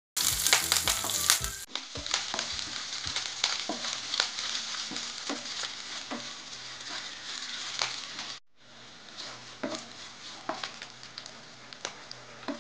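Oil sizzling in a nonstick frying pan as green chillies and curry leaves are stir-fried, with a wooden spatula scraping and tapping against the pan. The sizzle drops out for a moment about eight seconds in, then carries on quieter.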